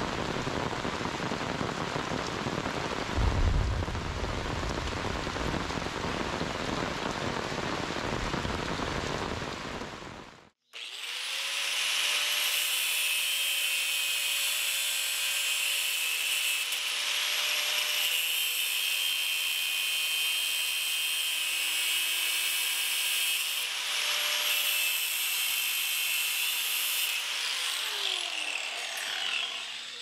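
Steady rain hissing on a wooded creek bed, with a brief low rumble about three seconds in. It cuts abruptly to an angle grinder that spins up, runs steadily at a high whine while cutting, and winds down with a falling pitch near the end.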